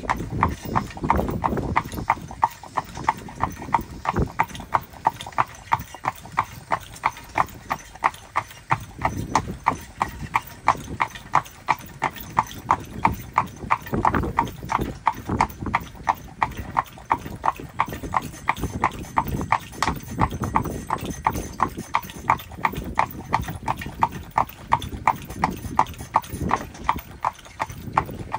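Horse-drawn buggy on a paved lane: the harnessed horse's hooves strike the road in a steady, even clip-clop rhythm, with a low rumble that swells and fades underneath.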